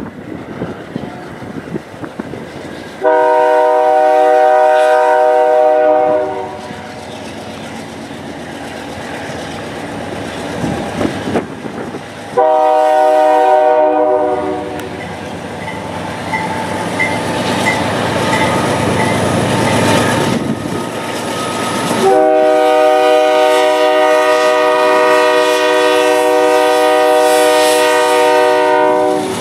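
Horn of a GE C40-8 diesel locomotive sounding three blasts: one of about three seconds, a short one near the middle, and a long one of about seven seconds near the end. Between them the working diesel engine and the rumble and clatter of the passing freight train.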